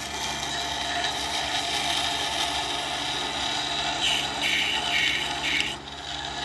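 WEN water-cooled wet grinder running with a steady motor hum while a scissor blade, held in a jig, grinds against the turning stone. This is the second side of the blade being sharpened. The scraping gets louder in a few short passes after about four seconds.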